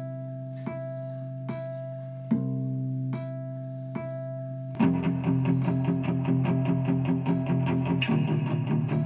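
Intro theme music led by guitar: sparse plucked notes over a held low drone, then a little under five seconds in it breaks into a fast, driving rhythm of several strokes a second.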